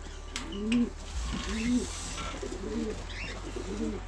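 Domestic pigeons cooing: a steady run of short, low coos, one or two a second.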